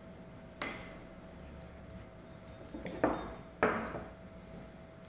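Metal spoons clinking against ceramic mugs: a light click about half a second in, then two sharper clinks with a short ring about three seconds in, half a second apart.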